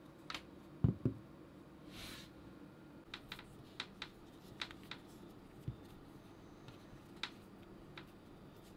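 Handling noise from a vinyl Funko Pop figure turned in the hands: two soft thumps about a second in, a short rustle, then scattered light clicks of fingers and nails on the hollow vinyl.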